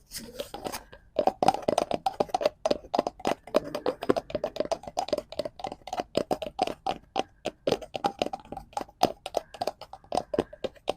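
Fast, irregular tapping and clicking on a cardboard prop, several sharp taps a second.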